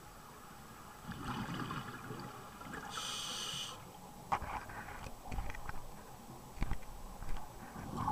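Scuba diver breathing through a regulator underwater: a sharp hiss of inhalation about three seconds in, followed by the bubbling and popping of exhaled bubbles.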